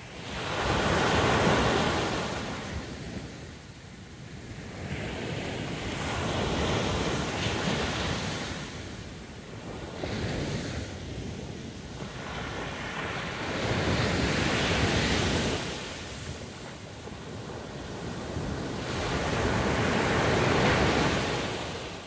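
Sea surf breaking and washing up a sandy beach, the noise swelling and ebbing every few seconds with each wave, loudest near the start and near the end.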